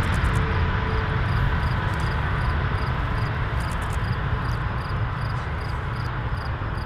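MiG-17F's afterburning VK-1F turbojet at full afterburner on takeoff: a deep, steady jet noise that slowly fades as the jet pulls away.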